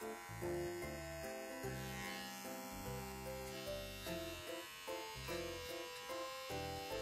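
Small cordless pet paw trimmer buzzing steadily as it clips the fur between a dog's paw pads, over background music.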